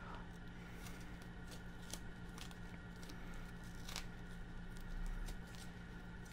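Faint rustling of a cloth snake bag and crinkling of the tape wrapped round its knotted neck as it is picked loose by hand, with scattered crisp clicks and a soft low thump about five seconds in, over a steady low hum.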